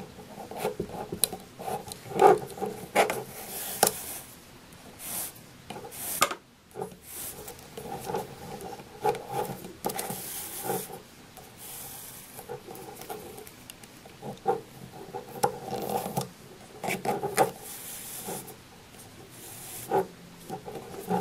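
Yarn rustling and rubbing as a large blunt needle is pushed through the loops on a plastic knitting loom and the yarn drawn through after it, with scattered light clicks and a few longer swishes of yarn being pulled.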